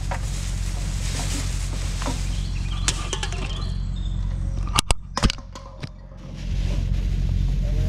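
Thin plastic bag rustling and crinkling as it is handled, over a steady low hum, with a few sharp clicks about five seconds in.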